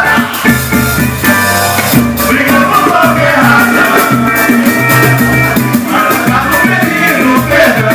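Live samba band playing: strummed acoustic guitar and cavaquinho over hand drums and shaken percussion, with voices singing.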